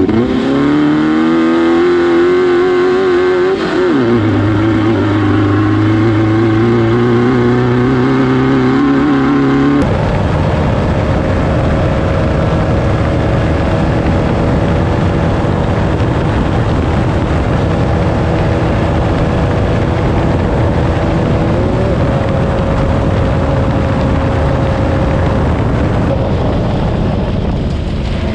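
Class 9 desert race buggy's air-cooled VW engine running hard, its pitch rising and swinging with the throttle. About ten seconds in the sound changes abruptly, and the engine then holds a steadier pitch under a louder rush of noise.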